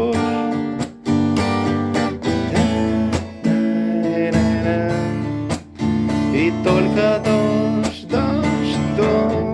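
Acoustic guitar strummed in a steady rhythm with a melody over the chords: the instrumental close of a song.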